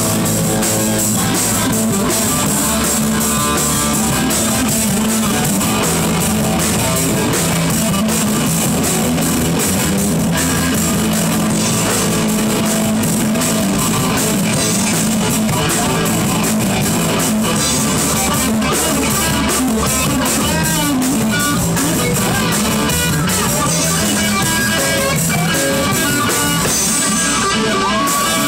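Live rock band playing: electric guitar, electric bass and a drum kit, loud and steady.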